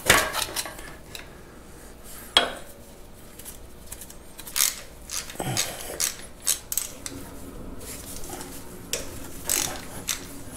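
Wrench clinking and clicking on metal as the governor mounting bolts are backed out of a Farmall 504 engine, in a string of irregular short knocks and scrapes.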